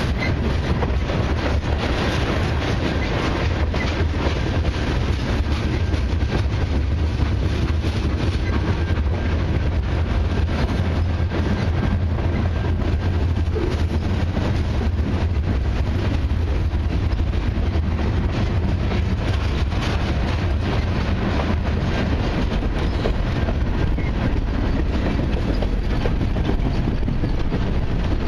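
Freight cars of a long mixed freight train rolling past close by: tank cars, covered hoppers and a centerbeam flatcar. Their steel wheels make a steady, loud rumble on the rails, with some clickety-clack.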